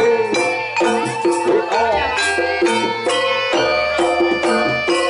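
Live jaranan music: a Javanese gamelan-style ensemble of struck pitched metal instruments and drums playing a steady, rhythmic piece.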